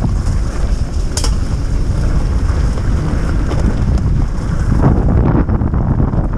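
Wind buffeting the microphone of a rider on a near-silent electric moped, a steady low rumble. A single sharp knock about a second in.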